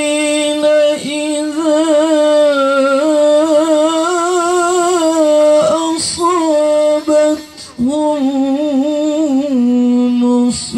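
A man reciting the Qur'an in a melodic, ornamented chant into a microphone: long held notes on a high tenor pitch with wavering turns, broken by a few brief pauses.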